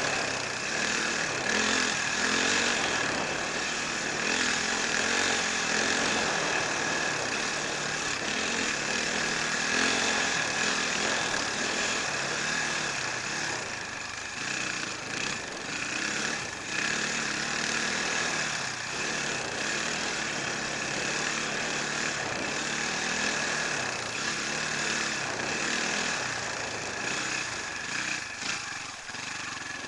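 Enduro motorcycle engine running as the bike rides along, revs rising and falling, over a steady rushing noise.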